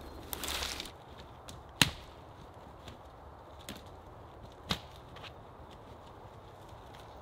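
Dead branches and twigs rustling briefly, then a few sharp cracks of dry sticks snapping or knocking as deadwood is gathered by hand, the loudest about two seconds in and another near five seconds.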